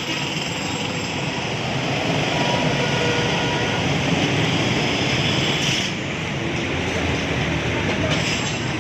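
Steady rush of wind and road noise from a moving motorcycle.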